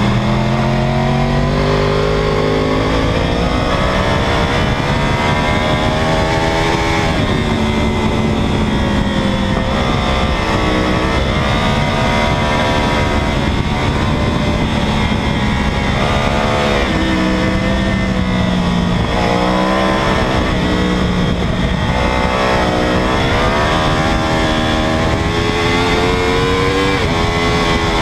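2009 Yamaha R1's crossplane inline-four engine pulling hard at racing speed, its pitch climbing through a series of upshifts over the first several seconds, then dropping and rising again and again through the corners. It is heard from the fuel tank over a steady rush of wind.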